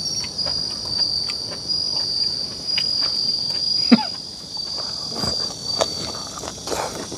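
Night insects, cricket-like, trilling in one steady high-pitched tone that stops near the end, with faint clicks of eating at the table. A short falling sound about four seconds in is the loudest moment.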